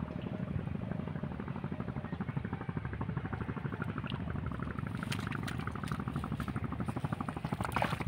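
An engine running steadily with a fast, even chug, and a few light clicks in the second half.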